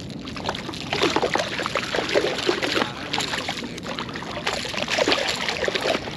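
A hooked redfish thrashing at the surface of shallow water, a run of irregular splashes that grow louder about a second in.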